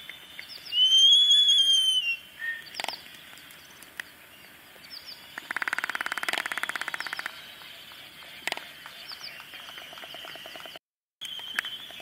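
Laysan albatrosses' courtship display. Near the start comes a loud drawn-out whistling call that rises and then falls as the birds point their bills skyward. About halfway through comes a rapid rattling clatter of bill-clapping lasting about two seconds, with a few single clacks before and after.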